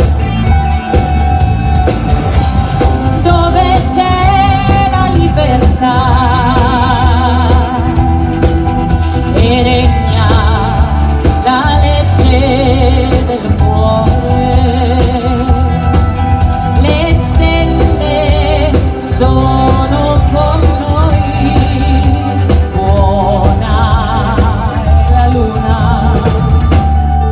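A woman singing a melody with vibrato over a live band, with bass guitar, drum kit, guitar, piano and organetto (diatonic button accordion) playing a steady beat under her.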